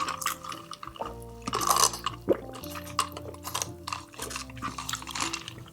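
Close-miked eating sounds, wet chewing and mouth smacks, over soft background music with held notes and a steady bass line. A few louder wet smacks come about two seconds in.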